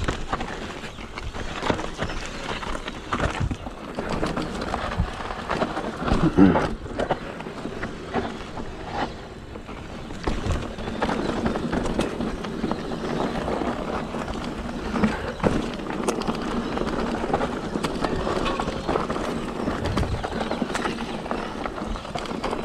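Kona Satori mountain bike ridden over a dirt and gravel trail: a steady rolling noise of the tyres on loose ground, with many short rattles and knocks from the bike as it goes over bumps. The loudest knock comes about six seconds in.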